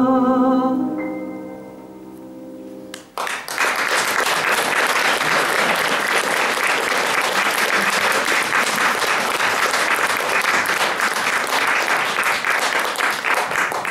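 A woman's voice holds the final sung note of a romance with vibrato, ending about a second in, while the instrumental accompaniment's last chord fades out. About three seconds in, audience applause breaks out suddenly and keeps on steadily.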